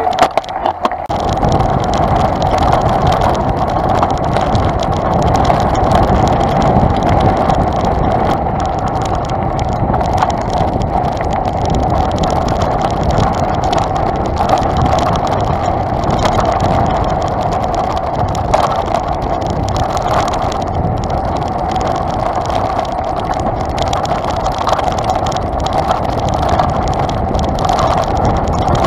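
Mountain bike rolling along a rough dirt forest trail, picked up by a camera mounted on the bike: continuous rumble of tyres and wind with dense rattling jolts from the bike, starting about a second in.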